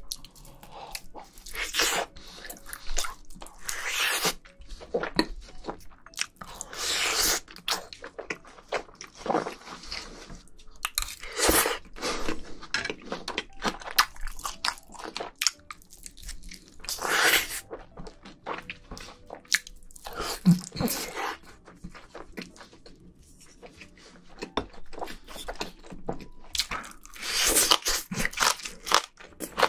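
Close-miked eating: biting and chewing of pork belly and crunchy stalks of kimchi, in irregular bouts of crunching with a quieter stretch about three-quarters of the way through.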